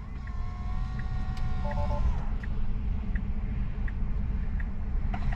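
A steady low rumble with a light tick repeating about every 0.7 s. A cluster of held electronic tones sounds over it in the first two seconds and slides down as it stops.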